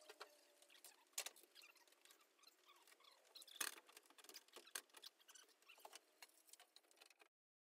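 Near silence with faint, scattered clicks and taps, the clearest about a second in and again a little past the middle; then the sound cuts out entirely near the end.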